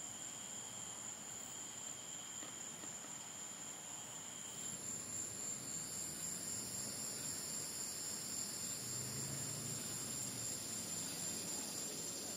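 Evening insect chorus: a faint, steady high-pitched trill. About four and a half seconds in the pitch changes, as a different chorus with higher, thinner tones takes over.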